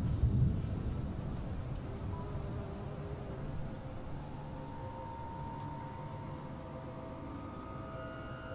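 Crickets trilling steadily in a high, evenly pulsing chirr. A low rumble fades out in the first second, and soft held ambient music tones come in about halfway through.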